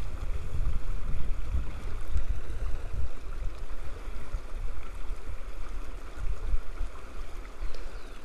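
Shallow mountain river rushing steadily over a stony riffle, with irregular low rumbling buffets on the microphone.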